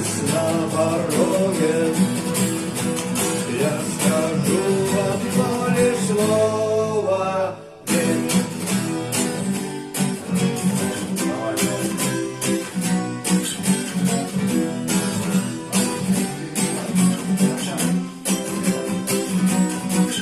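Acoustic guitar strummed, with a sung vocal line held over it for the first several seconds. The music breaks off briefly about seven and a half seconds in, then the guitar strumming carries on alone.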